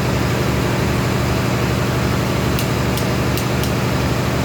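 Steady low machine hum, like a running engine or generator, with four light clicks between about two and a half and three and a half seconds in.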